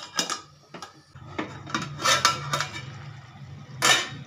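Steel spoon clinking and scraping against a metal cooking pot of raw sago being stirred for boiling, a handful of separate clinks with a louder clank near the end.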